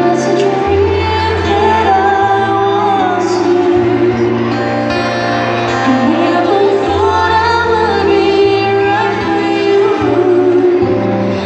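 A woman singing a song live with acoustic guitar accompaniment, amplified through a PA speaker.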